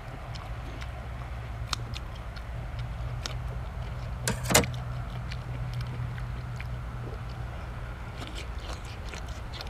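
Eating sounds: scattered small clicks of chewing and handling food, with one louder sharp double click a little before halfway, over a steady low hum.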